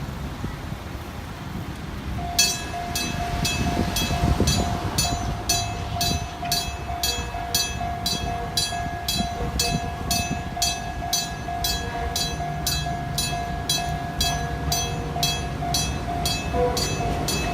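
Level-crossing train-approach warning at the Enoden street-running section starts about two seconds in and keeps sounding: a steady ringing tone with a sharp, ringing strike repeated a little over twice a second, over traffic rumble.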